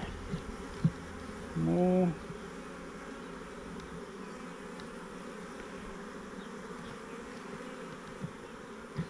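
A swarm of honey bees buzzing steadily around their new hive box. A man gives a short hummed 'mm' about two seconds in, and there are a couple of light knocks.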